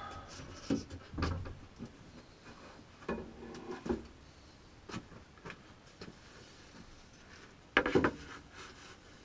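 Pieces of wood and tools being handled on a workbench: scattered knocks and rubbing, with a louder clatter of several knocks about eight seconds in.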